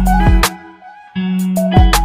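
Background music with a bass line and a drum beat. It drops out about half a second in and comes back just after a second.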